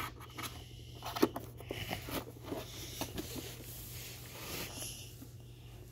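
Fabric rustling and handling noise close to the phone's microphone, with scattered small clicks and scrapes. The sharpest click comes about a second in.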